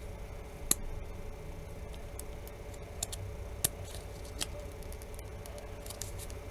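A few faint, scattered clicks and taps of a pry tool working at a phone's plastic back cover, over a steady low hum.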